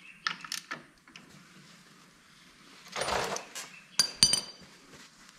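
Metal hand tools clinking: a few light clicks from a ratchet wrench on the clutch bolts, a rag rustling, then two sharp metallic clinks with a short ring as tools are set down.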